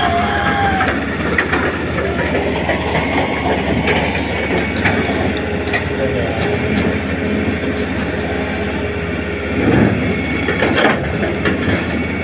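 Small electric motors and gearboxes of a Huina RC excavator and haul truck whirring under load, with scattered clicks and a louder rush about ten seconds in.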